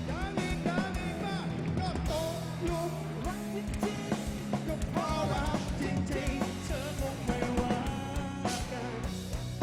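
Live rock band playing a song: drum kit keeping the beat under bass and guitar, with a gliding melodic lead line on top.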